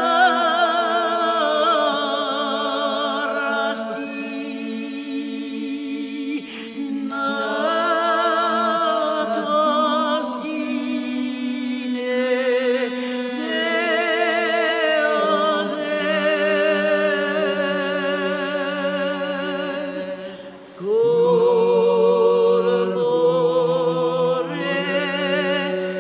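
Background vocal music: voices singing long held notes with vibrato, with no beat. Near the end a brief dip is followed by a louder phrase.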